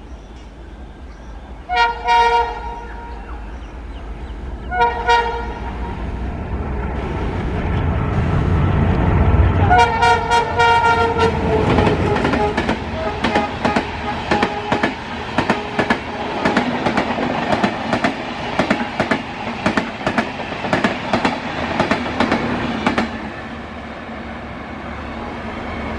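ALCo WDM-3D diesel locomotive sounding its horn three times, the third blast the longest, as its heavy engine rumble builds and passes close by. Then the coaches' wheels clatter in a rapid, even rhythm over the rail joints, fading near the end.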